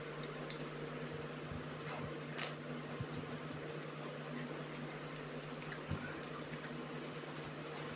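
A person chewing a mouthful of panipuri, soft wet squishing with faint clicks, over a steady low hum. A sharp click about two and a half seconds in is the loudest sound, with another near six seconds.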